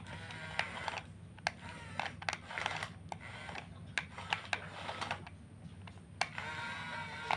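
Small electric motors of radio-controlled model heavy equipment whining, rising and falling in pitch as the machines move, with frequent sharp clicks and a steady low hum underneath.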